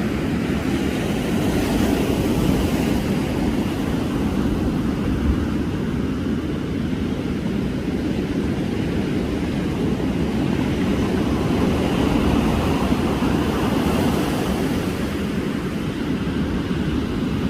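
Steady low rumble of wind buffeting the microphone, mixed with ocean surf on the shore.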